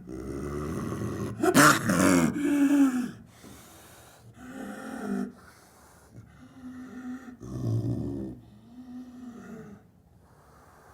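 Snow leopard calling: a run of short, low calls, each under a second, the loudest about two seconds in and the later ones quieter.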